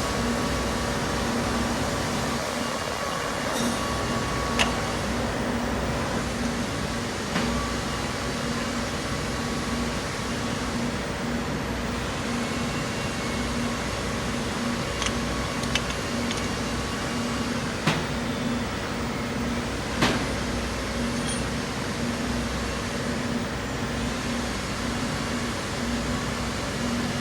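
Steady mechanical hum with a low droning tone, and a handful of sharp metallic clicks spread through it from small engine parts and tools being handled during reassembly.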